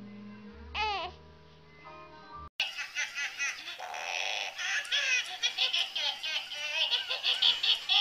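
A newborn gives a short whimper about a second in. After a cut, an animated plush toy plays rapid, high-pitched electronic giggling and chatter from its small speaker, growing louder toward the end.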